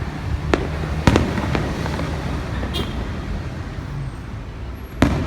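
Fireworks going off: four sharp bangs, each with a brief echo, the loudest about a second in and near the end, over steady low outdoor background noise.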